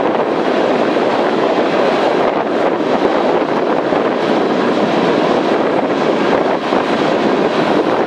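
Coal train's hopper cars rolling past on the rails, a steady, even rumble of wheels and cars, with wind on the microphone.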